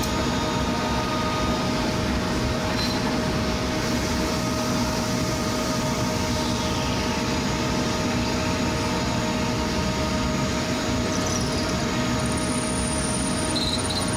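Drill press running steadily at an even level, with a few constant tones in its hum. Brief high squeals come near the end as the bit is fed into the jig plate.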